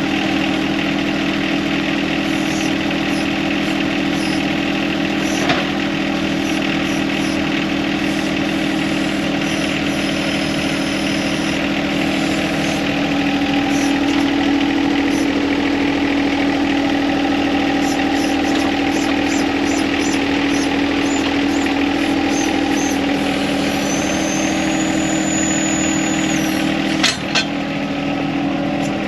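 John Deere compact tractor's three-cylinder diesel engine idling steadily while the tractor's hydraulics raise the backhoe stabilizers, the engine note a little stronger through the middle. A sharp knock comes about five seconds in and another near the end.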